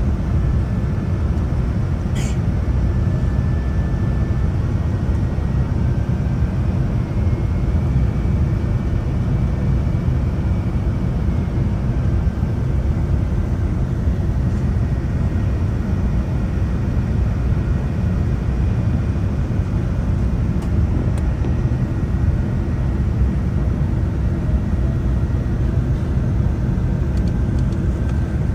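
Cabin noise inside a Boeing 787-10 airliner on approach to landing: a steady low rumble of engines and airflow, with faint high whining tones over it. There is a light click about two seconds in.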